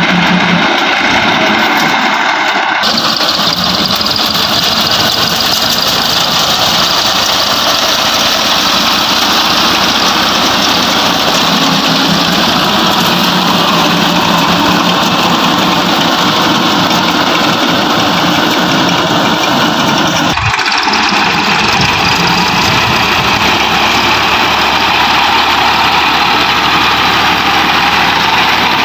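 Farm tractor's diesel engine running steadily while it drives a front-mounted reaper through standing wheat. The sound shifts abruptly twice, about 3 seconds and 20 seconds in.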